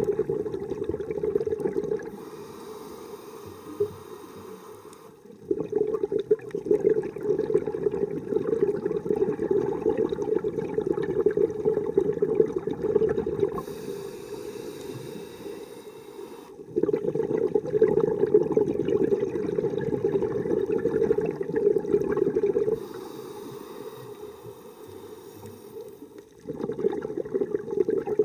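Scuba diver breathing slowly through a regulator underwater: long spells of rushing, bubbling exhaust alternate with shorter, quieter spells of thin inhalation hiss, about one breath every eleven seconds.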